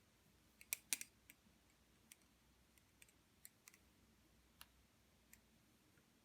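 Balisong being handled and folded closed: two sharp metal clicks about a second in, then a scattering of faint ticks and taps.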